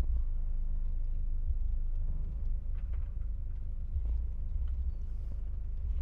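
Volkswagen Kombi van's engine idling steadily with a low rumble, while the van waits.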